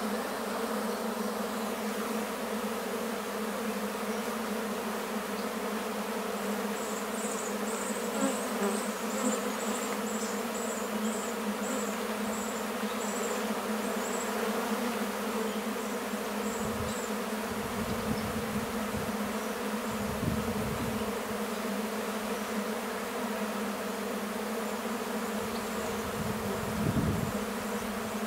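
A crowd of honey bees buzzing in a steady, continuous hum. A faint, high chirp repeats a couple of times a second for several seconds from about a quarter of the way in, and a few low rumbles come in the second half.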